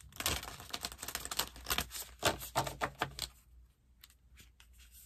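A tarot deck being shuffled by hand: a quick run of soft card clicks and flicks for about three seconds, thinning to a few scattered clicks.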